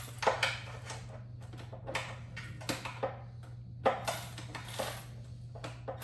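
Irregular metal clinks and taps from hand tools and small metal parts being handled while taking apart an airless paint sprayer, over a steady low hum.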